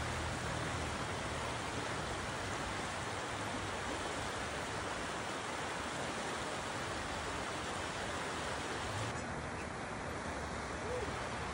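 Shallow river rushing over rocks, a steady hiss of flowing water. About nine seconds in it turns softer and duller.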